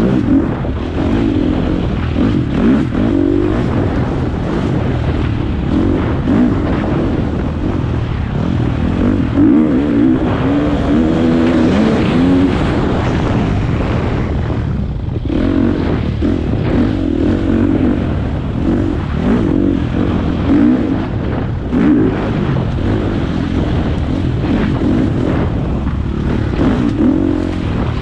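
Four-stroke single-cylinder dirt bike engine under way, its pitch rising and falling again and again as the throttle is opened and closed, easing off briefly about halfway through.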